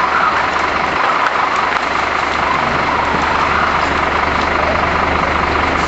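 Heavy fire-appliance engine running steadily, a loud even noise with no breaks.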